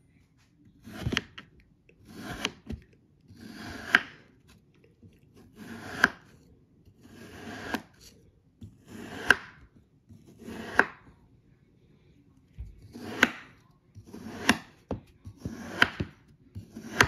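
Knife slicing through a packed block of kinetic sand, about ten cuts roughly a second and a half apart. Each cut is a grainy crunch that builds and ends in a sharp click.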